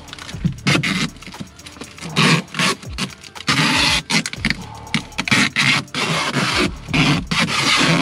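Irregular scraping and crinkling from hands working foil-jacketed flexible duct and plastic coveralls overhead, as the loose duct is refitted onto its collar; several longer hissy rustles in the second half.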